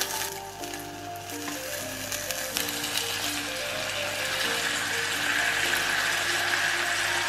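Background music with a gentle melody, over a soft, scratchy hiss of a pastry brush spreading butter and honey onto corn cobs, which gets louder about five seconds in.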